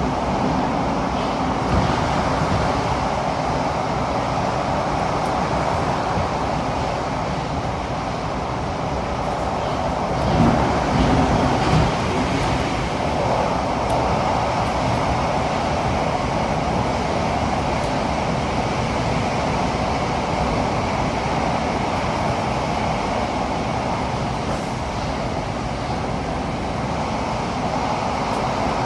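Cabin running noise of a Singapore MRT CT251 train (Kawasaki Heavy Industries & CRRC Qingdao Sifang) travelling between stations: a steady rumble and rush of wheels on rail, with a brief louder patch of bumps about ten seconds in.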